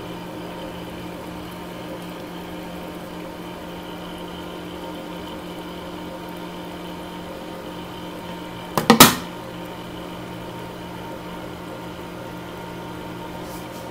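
A steady machine hum made of several tones, like a kitchen fan or appliance motor, and one short, loud knock about nine seconds in.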